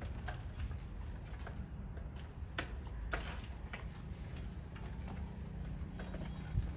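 Small child's bicycle with training wheels being pushed over rough concrete: irregular light clicks and rattles from the rolling wheels and loose parts, over a steady low rumble.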